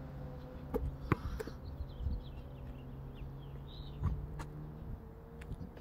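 A basketball bouncing on an asphalt court a few scattered times: two knocks about a second in, another about four seconds in and one near the end. Faint bird chirps come in the middle.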